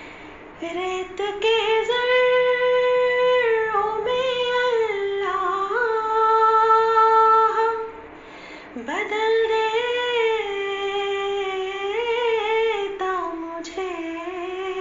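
A solo female voice singing a naat in long, ornamented held notes. It pauses briefly about eight seconds in, then takes up the next phrase.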